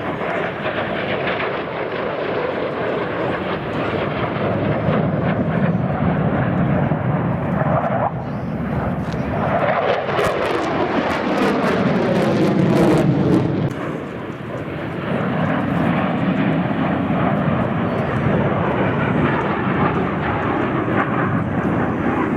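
Airplane engine noise from a low pass. A steady rush grows to its loudest a little past the middle, with a sweeping fall in pitch as it goes by, then drops off suddenly before building again.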